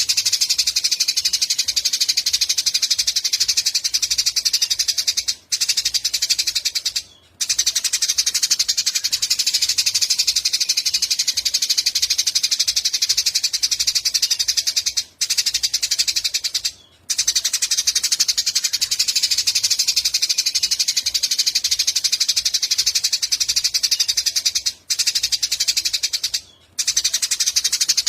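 A small songbird's very rapid, high-pitched trilling chatter, used as a masteran song track for cage birds. It runs almost without pause, broken by brief gaps that come in pairs about every ten seconds, as on a looped recording.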